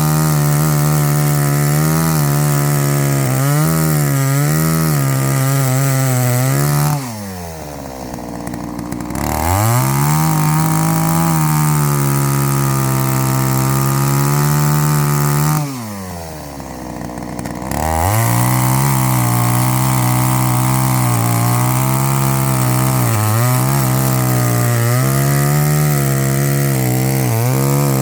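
Chainsaw cutting firewood at full throttle, the engine note dipping now and then as the chain loads up in the wood. Twice, about seven and sixteen seconds in, the engine drops to idle for a couple of seconds and then revs back up.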